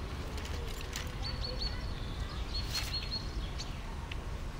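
Outdoor park ambience: a steady low hum with short, thin, high bird chirps repeated several times, and a few soft rustles as a shoulder bag and papers are rummaged through.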